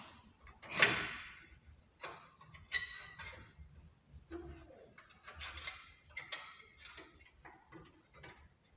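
Hand tools knocking and clinking on metal parts of a car's underside, in irregular strokes: a sharp knock about a second in is the loudest, then a clink that rings briefly, then scattered clatter.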